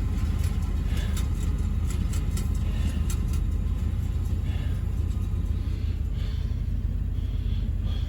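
Steady low rumble of a vehicle's engine and running gear heard from on board while driving over rough ground, with light rattles and clicks in the first few seconds.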